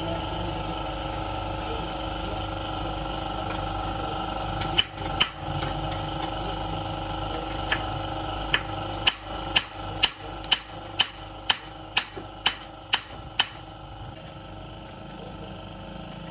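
A hammer striking metal: a few scattered blows, then about a dozen in a steady rhythm of roughly two a second, over a steady machine hum.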